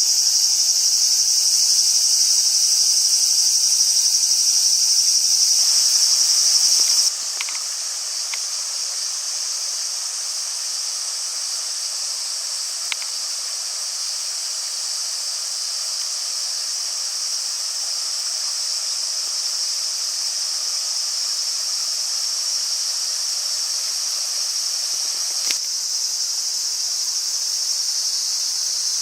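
A steady, high-pitched chorus of insects, dense and unbroken, which suddenly becomes quieter about seven seconds in and carries on, with a few faint ticks.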